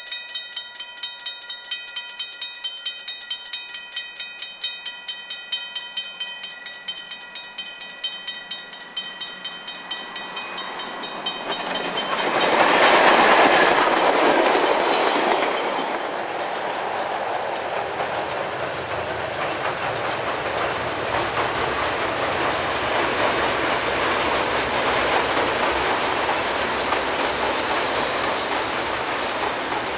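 A level crossing bell rings with a steady, even beat. About twelve seconds in it is drowned by the AB class steam locomotive AB 663 running through the crossing, loud for a few seconds. Its passenger carriages follow, rolling past with a steady clickety-clack.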